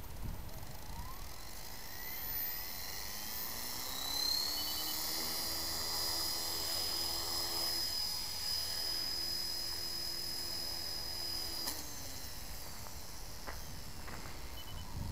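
Align T-Rex 450 Pro V2 electric RC helicopter spooling up, its pitch rising over the first few seconds, then running steadily with a high whine, with a noise the owner considers abnormal. About three-quarters of the way through the power cuts suddenly and the rotor winds down, its pitch falling.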